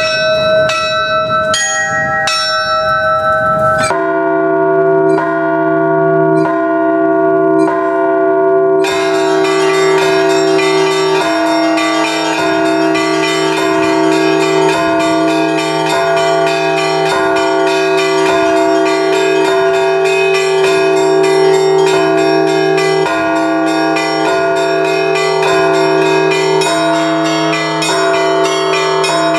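Russian Orthodox church bells rung by hand in a peal: a few small high bells strike alone at first, deeper bells join about four seconds in, and from about nine seconds the small bells ring in a dense, fast pattern over the steady hum of the deeper bells.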